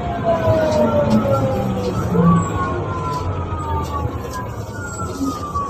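Mercedes-Benz O405N2 city bus running, its drivetrain whine falling in pitch as it slows, jumping back up about two seconds in and falling again, over a low engine rumble.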